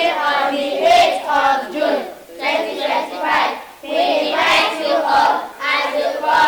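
A group of children singing together, with hand claps along the song.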